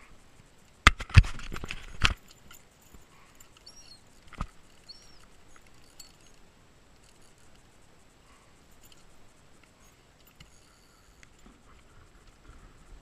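Handling noise while unhooking a striped bass aboard a plastic fishing kayak: a loud flurry of knocks and rattles about a second in, lasting about a second. Then a single knock and faint light handling sounds.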